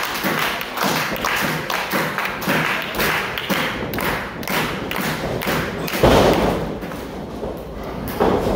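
Rhythmic claps, about two a second. About six seconds in comes a heavy thud of a wrestler's body hitting the wrestling ring's canvas, and more thuds follow near the end.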